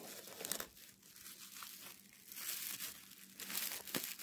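Plastic bubble wrap crinkling and rustling as hands rummage through a packed box and lift out a wrapped figure, with irregular crackles and a sharp click about four seconds in.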